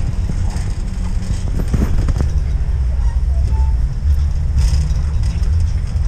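Shopping cart rolling along a store aisle: a continuous low, uneven rumble from the wheels, with a few rattles and clicks about two seconds in.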